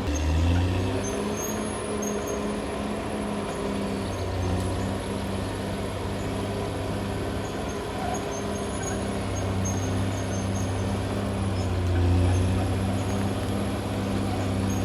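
Caterpillar D6R XL bulldozer's diesel engine running under load as the machine works, its pitch climbing just after the start and dipping and picking up again near the end.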